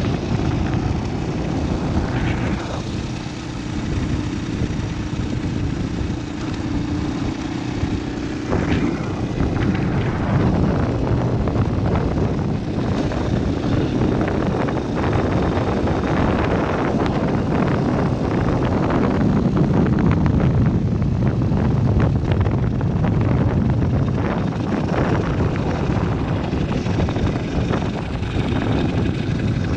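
Motorcycle engine running steadily while riding, with wind rushing and buffeting over the microphone.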